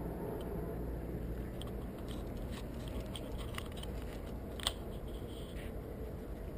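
A puppy mouthing and chewing at the pebbled ground right beside the camera: scattered small clicks and crunches, with one sharper click about two-thirds of the way in, over a steady low background noise.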